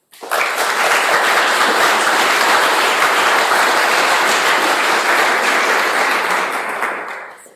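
Audience applauding, a steady wave of clapping that tails off near the end.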